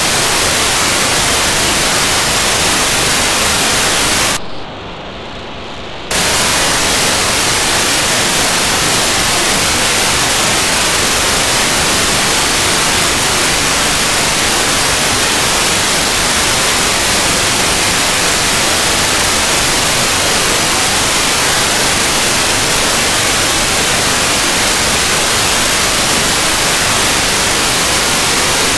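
Steady hiss of an Airspy R2 software-defined radio receiving on the 70 cm amateur band near 437.6 MHz. About four seconds in, the hiss goes muffled and quieter for under two seconds: a short signal from the ArcCube-01 cubesat's telemetry downlink briefly captures the receiver.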